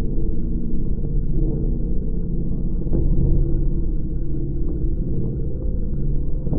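Surf rock recording slowed to a tiny fraction of its speed: a deep, continuous drone of smeared low tones and rumble, with a faint brief hit about halfway through.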